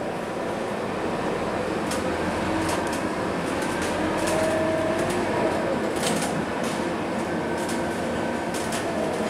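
Inside a moving Scania K230UB city bus: the diesel engine and road noise run steadily, with the cabin fittings rattling in scattered clicks, most around two and six seconds in. A faint whine rises briefly about four seconds in.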